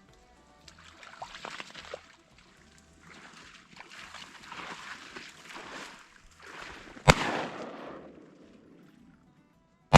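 Two 28-gauge shotgun shots at a decoying mallard drake, the first about seven seconds in and the second right at the end, each a sharp report with a short ringing tail. Before them, soft rustling and sloshing noise.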